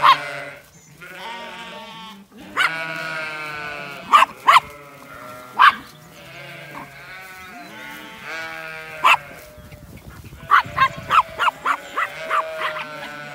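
A flock of Zwartbles sheep bleating, several long calls overlapping one another. Short sharp clicks sound now and then, coming in a quick run near the end.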